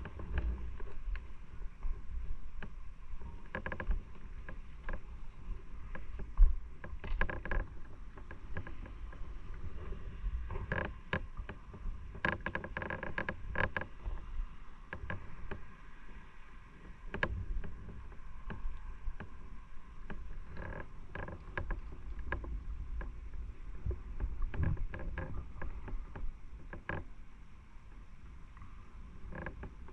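Motorcycle on the move, heard from the bike: a steady low rumble with wind noise, and frequent short knocks and rattles throughout.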